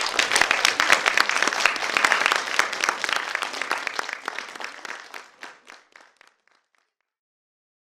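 Audience applauding, the clapping thinning and fading away about six seconds in.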